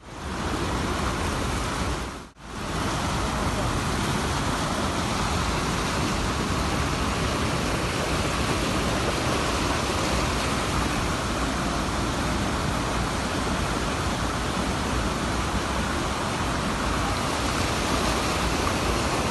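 Waterfall with a steady, dense rush of falling water, cut out briefly about two seconds in.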